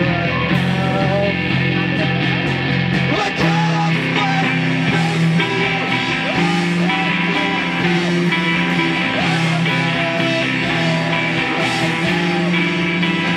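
Emo rock band playing live: electric guitars, bass and a drum kit, with steady drum hits throughout.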